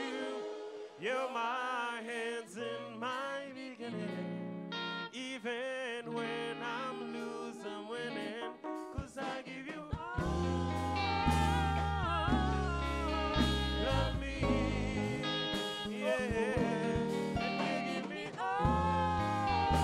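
Live acoustic song: a singer holds a melody with vibrato over light accompaniment, and about ten seconds in a fuller band with a strong bass line comes in under the voice.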